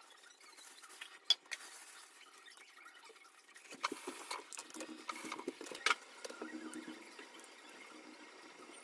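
Kitchen prep handling: light clicks, knocks and scraping of a metal grater and knife against a wooden cutting board. A single sharp click comes about a second in, and a cluster of small knocks and scrapes follows in the middle.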